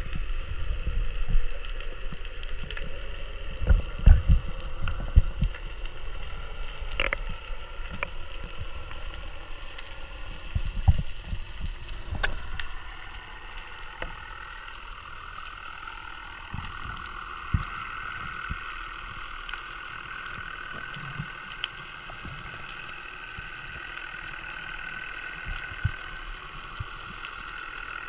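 Underwater sound picked up by a camera in its housing as a diver descends: low rushing water and knocks of the moving housing, with a few sharp clicks, in the first half. From about halfway it settles into a steadier, quieter underwater hum with a faint whine.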